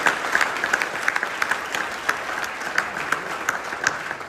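Audience applauding: many hands clapping, dying away near the end.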